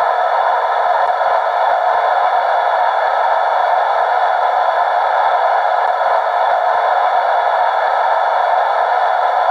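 DCC sound decoder in a model Class 91 electric locomotive, playing recorded Class 91 sounds through its small speaker: a steady hum and whine with several held tones, holding the same pitch throughout.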